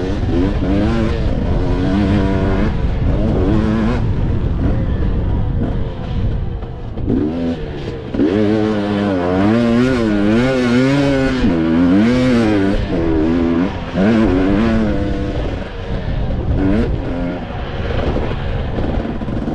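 Dirt bike engine being ridden hard, its pitch climbing and falling again and again as the throttle is worked, with short drops in revs a few times when the rider backs off or shifts.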